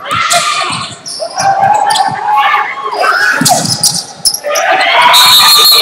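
Basketball game in a gym: a ball bouncing on the hardwood court amid players and spectators shouting, echoing in the hall, the shouting loudest near the end.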